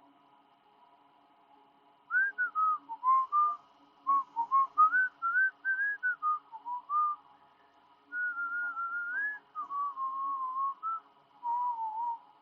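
A person whistling a tune, starting about two seconds in, first in short quick notes and then in longer held, wavering notes, over a faint steady hum.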